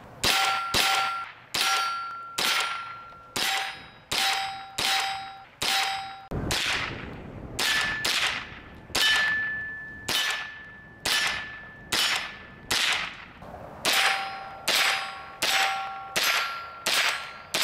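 Rapid string of .22 Long Rifle shots from a Henry US Survival AR-7 rifle, about two a second. Many shots are followed by the ringing ding of a steel target being hit.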